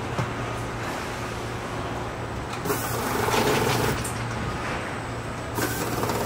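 Car assembly line machinery running with a steady low hum, broken by two louder spells of hissing noise, the first about three seconds in and the second near the end.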